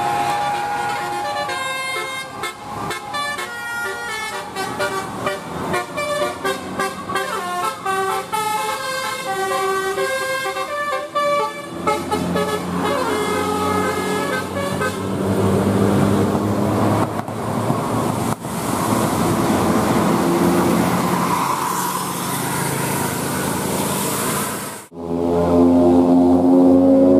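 Bus telolet horns: a multi-tone air horn plays a fast tune of short notes, then steadier horn tones sound over engine and road noise. The sound cuts off about 25 seconds in, and a long held horn note follows.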